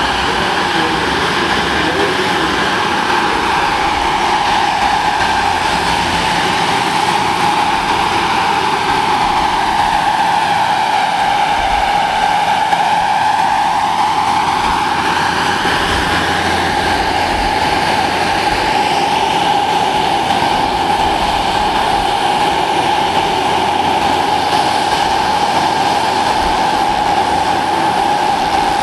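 The turbine engine of a large scale-model EC 145 helicopter running with a steady high whine as the model flies. Around the middle the tone shifts in a hollow sweep down and back up as it moves across the hall.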